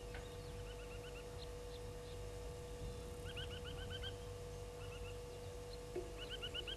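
Blacksmith lapwings alarm-calling in four quick runs of short, sharp, repeated notes, upset by a slender mongoose.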